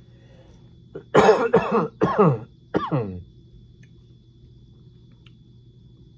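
A man coughs three times in quick succession, about a second in, each cough short and loud with a falling pitch.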